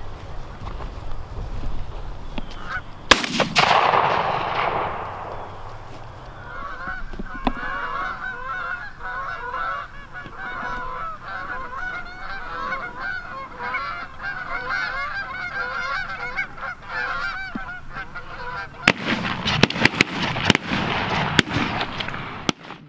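A single shotgun shot about three seconds in, with a long echoing tail: a wounded goose being finished off. Then a flock of Canada geese honking continuously as they fly over, followed near the end by a run of sharp clicks.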